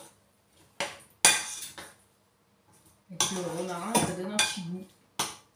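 A metal utensil scraping and clinking against a glass mixing bowl as thick cake batter is stirred: a few short separate strokes in the first half, then a longer run of scraping about three seconds in.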